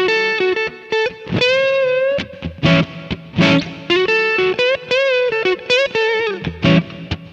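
Electric guitar, a Fender Stratocaster, played through a Kemper profiling amp on a slightly overdriven, edge-of-breakup blues tone. Single-note blues licks with string bends and vibrato, broken up by a few short strummed chord stabs.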